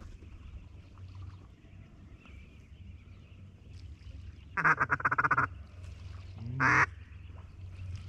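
Duck call blown in a fast, even chattering run of quacks lasting about a second, past the middle, then a single quack that rises in pitch a moment later.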